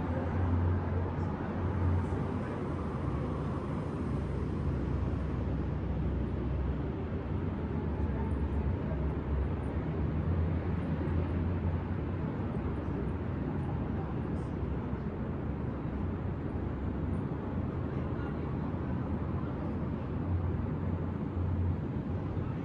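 Steady low rumble of city traffic, a continuous even hum with no single vehicle standing out.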